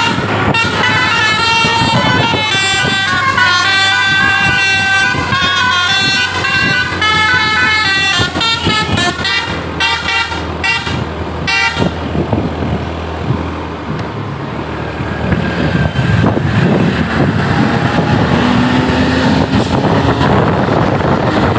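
Bus's Basuri multi-tone telolet horn playing a tune of stepped notes, ending in a few short toots about ten to twelve seconds in. After that only steady engine and road noise remains.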